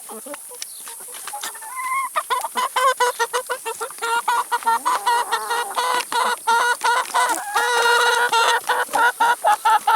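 Chickens clucking, a run of short repeated calls several times a second that grows louder about two seconds in, over a scatter of short sharp clicks.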